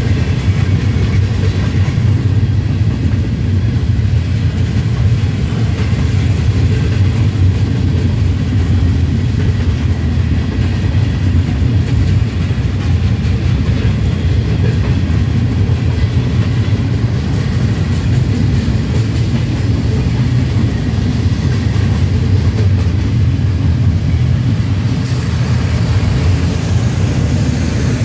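Freight train's gondola cars rolling past: a steady, loud rumble of steel wheels on rail, without a break.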